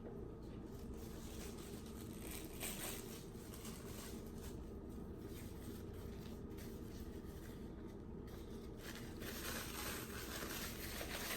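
Faint eating sounds: chewing food, with soft rustling and crinkling as the food and its wrapping are handled, a little fuller near the end.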